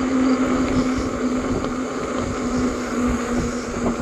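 Electric bike riding along: a steady hum from its 750-watt motor and 4-inch fat tyres under pedal assist, with wind rumbling on the microphone.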